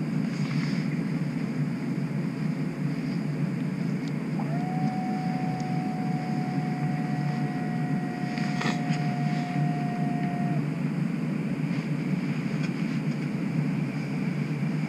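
Steady low hum inside a streetcar standing at a stop. A steady high tone is held for about six seconds, starting about four seconds in, and there is a single click shortly before the tone ends.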